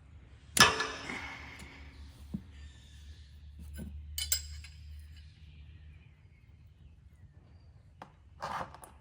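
Metal wrenches clanking and clinking against the mower's oil drain fittings: one loud ringing clank about half a second in, then lighter clinks around four seconds and again near the end.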